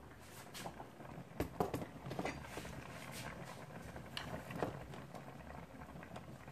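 Handling noise from a phone being carried and set in place: faint scattered knocks, clicks and rubbing, with a low hum under them.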